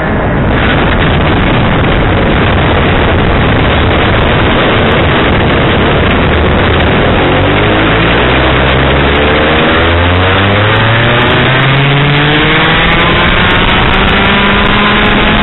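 Go-kart engine running with heavy wind rush over the onboard microphone; from about halfway the engine note climbs steadily as the kart accelerates, dipping briefly once before rising again.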